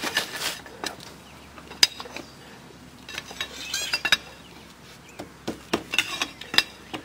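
Flat steel pry bar clinking and scraping against a 1985 Kawasaki KLF185 ATV engine's magneto side cover as the stubborn cover is worked loose. Irregular sharp metallic clicks and taps, several a second in spells.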